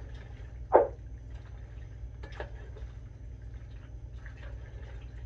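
Large spoon stirring mayonnaise-dressed macaroni and chicken salad in a metal bowl: soft wet squishing, with a sharp squelch about a second in and a weaker one a little past two seconds.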